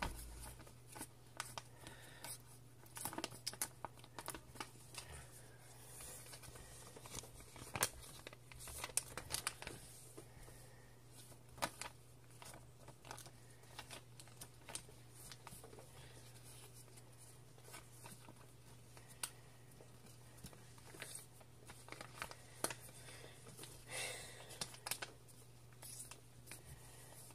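A sheet of paper being folded and creased by hand into a paper airplane: irregular crinkling and rustling with short clicks and taps as the folds are pressed flat on the desk, over a faint steady low hum.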